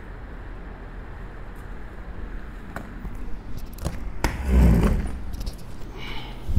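Steady low room hum, then a few sharp clicks and a dull thump with rustling about four and a half seconds in: handling noise as a person bends down and picks up a small object.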